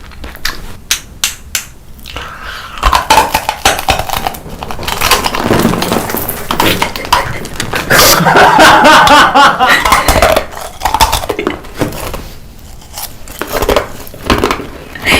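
Close-miked eating: crunching and crackling bites and chewing, dense and loud in the middle, with sharp clicks and clinks of cutlery or dishes before and after.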